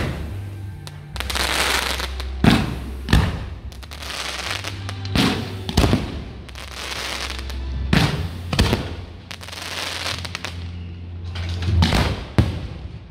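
A fireworks display going off: about a dozen sharp bangs, each trailing a brief crackling hiss, at uneven intervals. Music with a steady low bass hum plays underneath.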